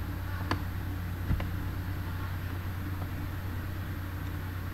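Steady low hum of room or electrical background noise, with two short clicks about a second apart, the first about half a second in and the second carrying a low thump.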